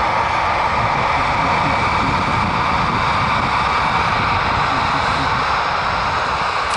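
Jet airliner's engines running loud and steady, a broad roar with a faint high whine that fades out about halfway through.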